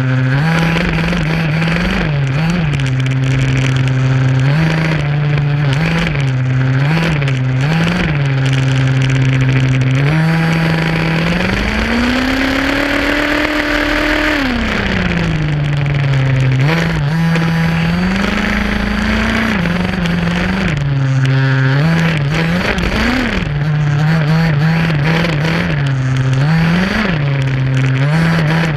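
HPI Baja SS RC buggy's small two-stroke gas engine running close to the microphone, with quick throttle blips. About eleven seconds in, one longer rev climbs and holds for several seconds before falling back to a steady drone.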